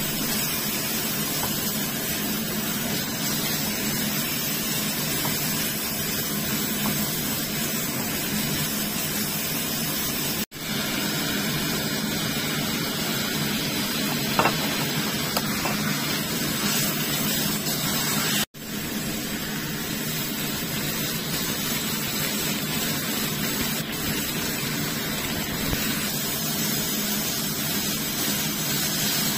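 Ground pork frying in a stainless steel wok: a steady sizzling hiss, cut off sharply for a moment twice.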